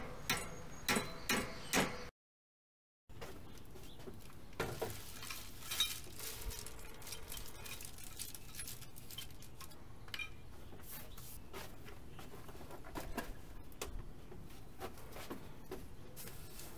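Metal hand tools clinking and clattering as they are handled and set down on a wooden table. In the first two seconds, a run of sharp metallic clicks comes from a wrench on a cassette lockring tool at a bicycle's rear cassette, followed by about a second of dead silence.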